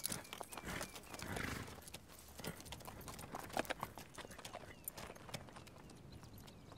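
Horse hooves clopping on stony ground: slow, uneven hoof strikes and scrapes on rock and gravel.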